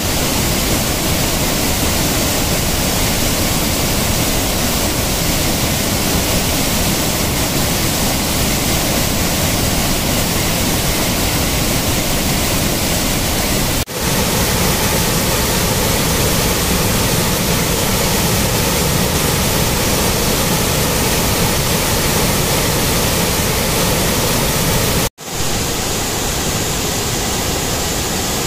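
Waterfall in heavy flood, with large volumes of river water pouring over rock ledges in a loud, steady rush. The sound breaks off for an instant twice, about halfway through and near the end.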